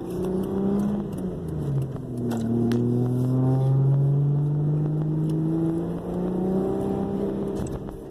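Ford Probe GT engine pulling under acceleration, its pitch climbing steadily and dropping back at gear changes about two seconds in and again near the end.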